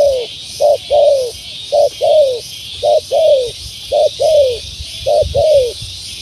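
Spotted dove (tekukur) cooing: six paired calls in steady rhythm, each a short note followed by a longer falling note, about one pair a second. A high, pulsing buzz runs steadily behind it.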